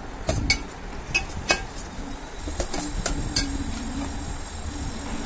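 Perforated steel ladle clinking and scraping against a steel pot while stirring a thin masala gravy: several sharp metal clinks, spaced irregularly.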